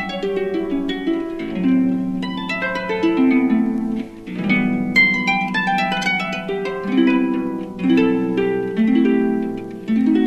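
Jazz harp music: a run of plucked, ringing notes moving up and down over repeating lower notes.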